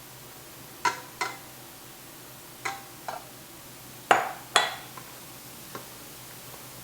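A utensil knocking against a mixing bowl with a brief ring, seven times, mostly in pairs, as grated carrots are added and folded into cake batter.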